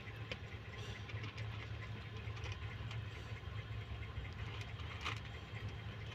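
A mother cat purring low and steadily while a kitten nurses, with faint small clicks from the suckling.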